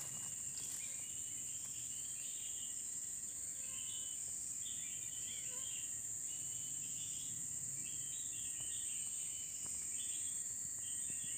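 Steady high-pitched drone of forest insects, with birds chirping short repeated calls throughout.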